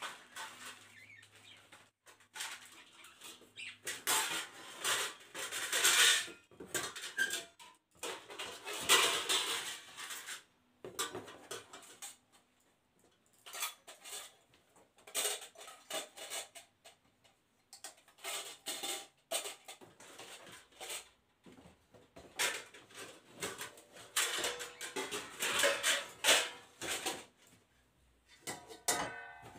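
Stainless steel plates and bowls clinking and scraping together as they are handled and set down, with crinkling plastic wrapping. The sound comes in several bouts with quieter pauses between them.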